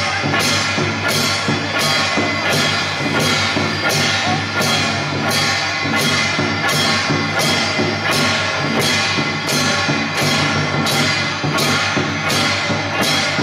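Taiwanese temple-procession music: percussion with cymbal-like crashes about twice a second over sustained droning tones.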